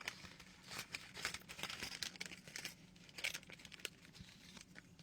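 Small item's packaging crinkling and rustling as it is handled and opened, in soft, irregular crackles, over a faint steady low hum.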